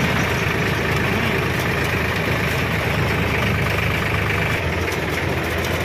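Diesel tractor engine running steadily as the tractor drives along, heard from the driver's seat close to the engine and exhaust stack.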